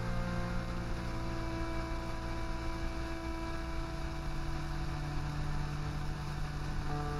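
Ambient electronic drone music: sustained synthesized tones held together like a chord, the low note stepping up about halfway through and a new chord sliding in near the end.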